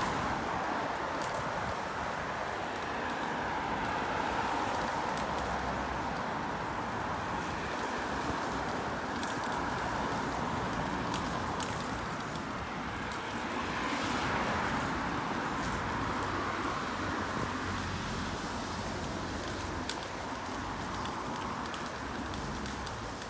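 Steady road traffic noise heard while riding a bicycle along a paved sidewalk, swelling a little a couple of times as cars pass, with scattered light clicks and rattles.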